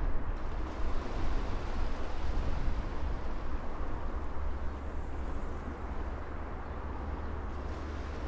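Steady outdoor ambience: a low rumble and hiss of wind with distant traffic, a little more uneven in the first few seconds.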